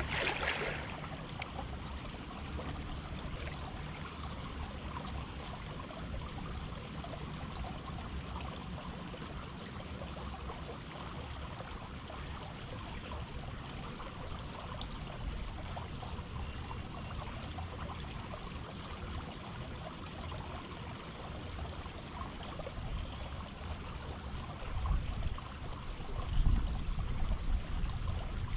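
River water flowing steadily, an even rushing of the current, with a low rumble rising near the end.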